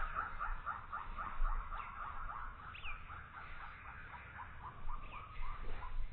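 An animal calling: a long run of quick, repeated chattering notes, several a second, that slow down toward the end.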